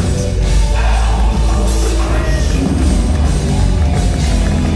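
Live rock band playing loud and steady, amplified: electric guitars, drum kit and keytar over a heavy bass line.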